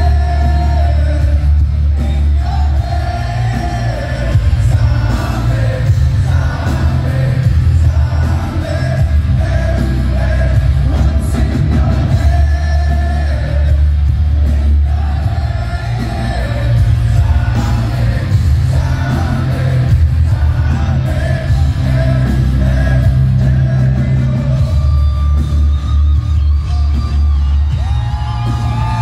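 Live hard rock band playing: distorted electric guitars over a heavy, steady low end, with a male lead singer singing throughout.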